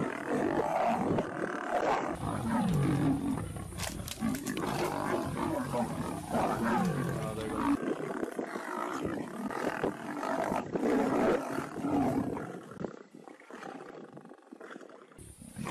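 Lions snarling and growling at each other as a male lion and lionesses squabble over a kill; the noise drops away about three seconds before the end.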